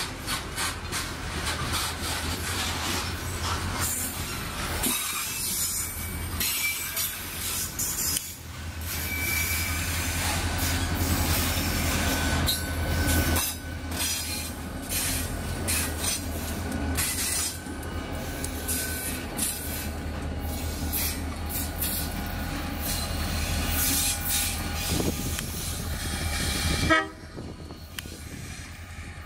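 Diesel-hauled freight train passing close by: a heavy low locomotive engine rumble with the clatter and screech of wagon wheels on the rails. The sound drops sharply near the end.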